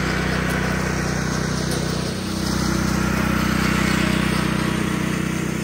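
Honda GX120 single-cylinder four-stroke engine on a California Trimmer 20-inch, 7-blade reel mower running steadily under load while mowing grass.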